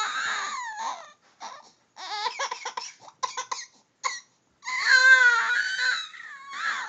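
Infant's high-pitched squealing cry trailing off, then a run of short, broken coughing sounds, then another long wavering squeal about five seconds in.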